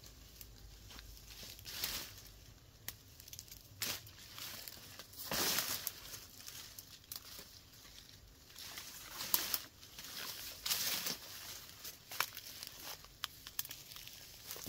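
Leafy plant matter handled by hand, rustling and tearing in short irregular bursts about a second or two apart.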